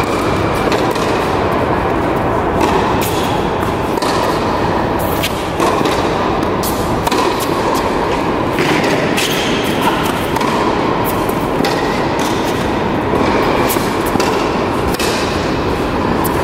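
Tennis rally on an indoor hard court: rackets striking the ball and the ball bouncing, sharp pops every second or so, over the steady reverberant noise of a large tennis hall.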